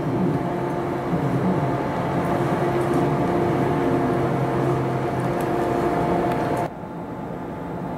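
A JR Kyushu 415 series electric train standing at the platform, its onboard equipment humming steadily with a few constant tones. The sound drops off abruptly near the end.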